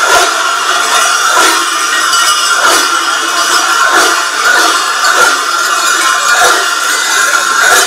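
Many large cowbells, the campanacci worn by Sardinian carnival masks in sheepskins, clanging together continuously. A fresh heavy shake comes in rough rhythm a little more than half a second apart, as the bell-wearers move in step.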